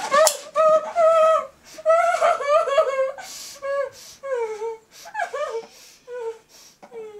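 A woman's high, muffled cries and whimpers through a gag, coming in short repeated cries that turn into weaker falling moans and fade out near the end.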